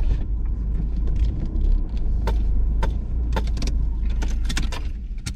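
Vehicle running, heard from close by: a heavy steady low rumble with frequent sharp clicks and rattles. The rumble dies away near the end.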